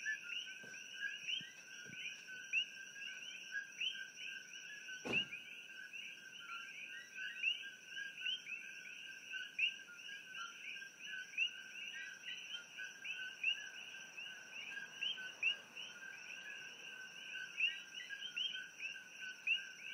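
Dense chorus of many coqui frogs calling together, their short rising chirps overlapping continuously, over a steady high tone. A single sharp knock sounds about five seconds in.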